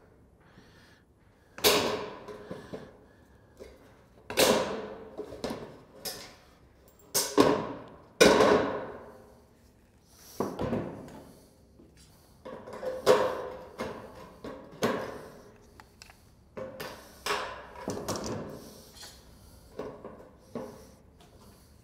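Aviation snips cutting through thin painted sheet-metal roofing trim: a series of sharp snips, one every second or two, each with a short metallic ring as the notch is cut for the folding tabs.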